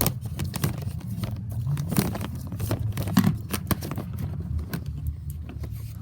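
Bubble-popper fidget toy pressed over and over, giving a string of small popping clicks, over a steady low rumble.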